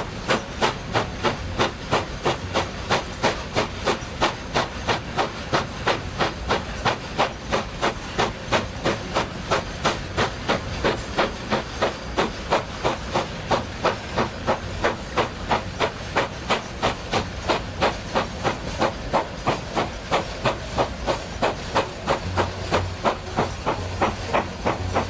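Steam locomotive exhaust chuffing in an even beat of about two a second, the sharp exhaust beats of an engine working hard as it pulls a train of coal wagons.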